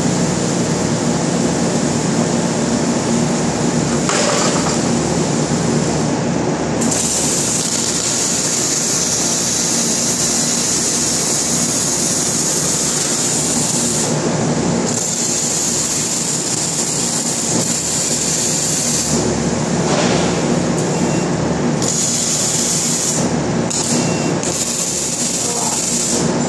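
Arc welding on a steel frame: runs of crackling hiss start and stop, one long run starting about seven seconds in, a second shortly after, then several short ones near the end. Under it, a steady loud drone and hum.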